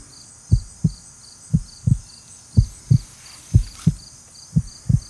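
Heartbeat sound effect: paired low thumps, lub-dub, about once a second, over a faint high chirping that pulses about four times a second.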